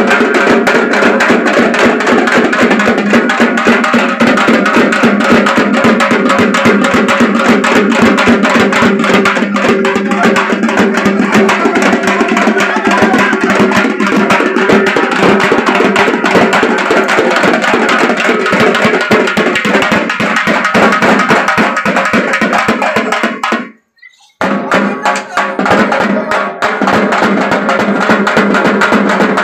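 Fast, dense drumming accompanying a bagha nacha (Odia tiger dance), played continuously and loudly; the sound drops out suddenly for about half a second near the end.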